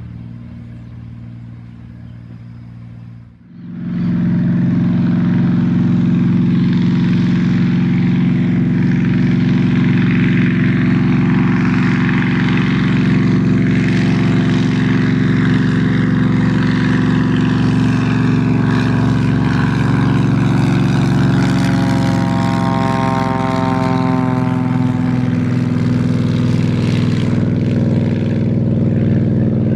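Agricultural crop-duster's piston engine and propeller running at full power for takeoff, a loud steady drone. It jumps louder about three and a half seconds in, and past the middle a sweeping, wavering tone runs through it as the plane moves along the runway.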